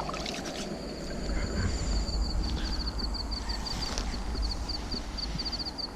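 Night insect chirping in a fast, even run of short high-pitched pulses that starts about two seconds in, over a steady low rumble of outdoor noise.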